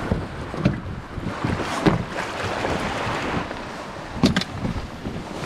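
Shallow sea water sloshing around an inflatable boat, with wind on the microphone and several knocks and thumps as people climb aboard, the loudest a little past halfway.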